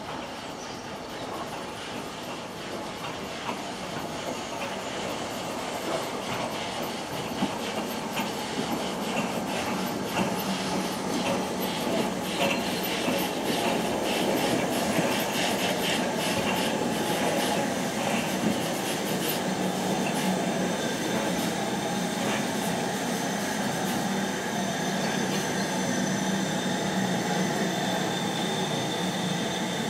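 Railway carriage wheels running over pointwork and rail joints, with rapid clicking and some wheel squeal, the train noise getting louder as the train picks up speed.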